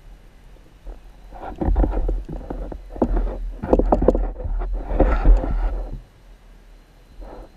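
Muffled underwater rushing and knocking picked up through a GoPro's waterproof housing, as water churns against the submerged camera. It starts about a second and a half in as an uneven, rumbling swell and dies away about six seconds in.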